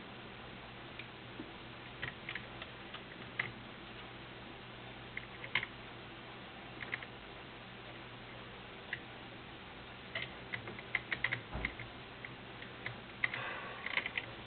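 Scattered light clicks and taps of small parts being handled as Wonder Wheel rods are fitted to a Necchi BU Mira sewing machine. The clicks come more often from about two-thirds of the way in, with a quick cluster near the end.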